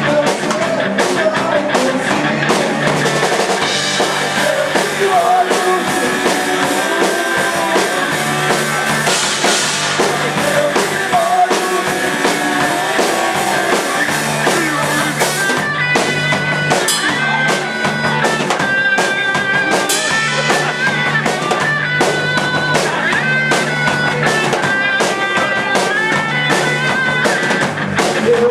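Rock band playing live: drum kit, bass and electric guitar, with held melodic guitar or vocal lines coming through more clearly about halfway in.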